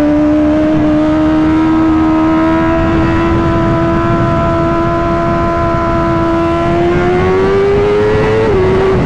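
Honda CBR1000RR-R SP superbike's inline-four engine running at steady high revs under way, its pitch climbing slowly. It then rises faster for a second or so before dropping abruptly near the end.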